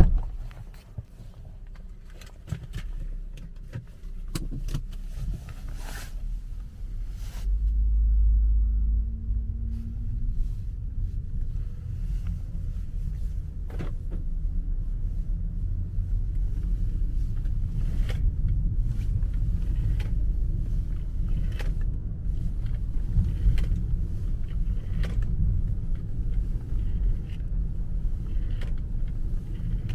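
2009 BMW 5 Series being driven slowly, heard from inside its boot: a sharp knock at the start, then a low engine and road rumble that swells about seven seconds in as the car pulls away, with scattered knocks and rattles from the boot throughout.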